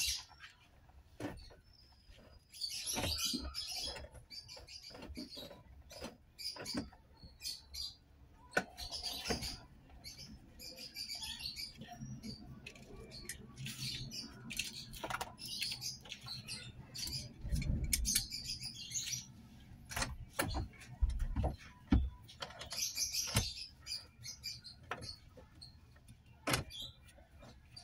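Scattered light clicks and knocks from hands working at a car's steering wheel during a horn repair, with birds chirping in short bursts.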